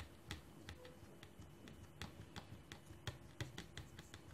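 Faint, irregular clicks and taps, about two or three a second, as hands press and flatten a ball of soft dough onto a ridged metal crinkle-cut potato cutter.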